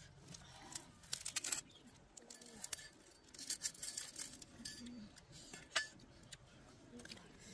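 Light clicks and clinks of tableware, coming in short clusters a little over a second in and around the middle, with one sharper clink near the end.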